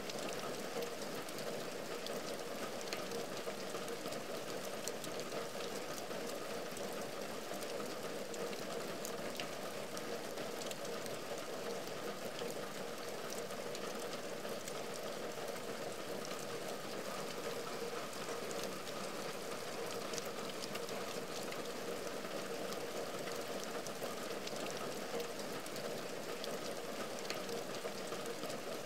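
Steady rain falling on a window and its outside ledge: an even hiss with a dense patter of small drop ticks, no thunder.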